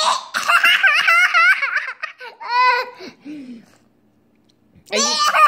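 Young child laughing hard: a rapid run of high-pitched giggles for about two seconds, then a few shorter high-pitched vocal sounds, and another burst of laughter near the end.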